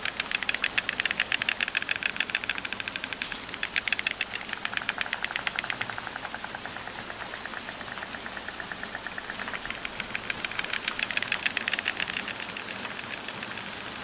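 White storks bill-clattering: the bill snapped rapidly open and shut in a fast, even wooden rattle, in three long bouts, with the first and last the loudest. It is the pair's greeting and courtship display at the nest.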